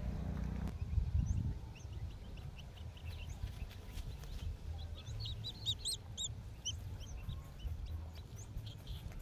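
Small birds chirping: many short, quick high chirps, thickest in a burst about halfway through. Under them runs a low rumbling noise, loudest about a second in.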